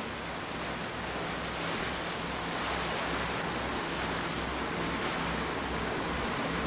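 Water rushing and splashing along the hull of a motor yacht under way, with wind on the microphone and a steady low drone underneath from her twin Chrysler V8 marine engines.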